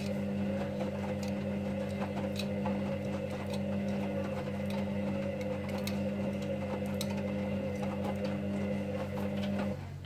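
Hoover Dynamic Next front-loading washing machine's drum motor running with a steady hum as the drum tumbles wet laundry, with light clicks on top. The motor whine cuts off near the end as the drum stops.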